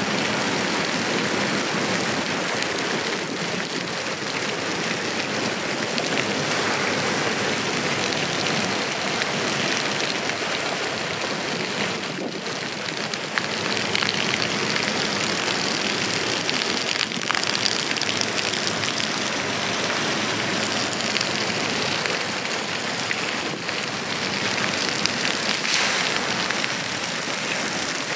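Steady storm rain: an even hiss of falling drops that does not let up.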